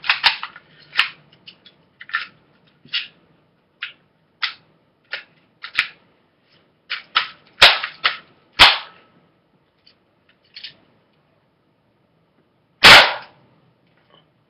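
Crosman Pumpmaster BB gun being handled: a scattered run of clicks and knocks from its plastic parts. Two sharp snaps come about a second apart near the middle, and a louder crack with a short tail comes about two seconds before the end.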